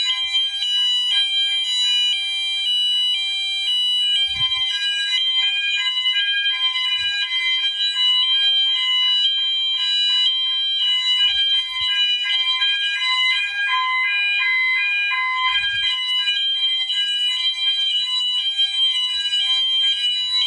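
Fire alarm horns and sounders going off together in general alarm, set off by a smoke detector being tested with smoke. Several loud electronic tones overlap: one stays steady while others alternate up and down in pitch about twice a second.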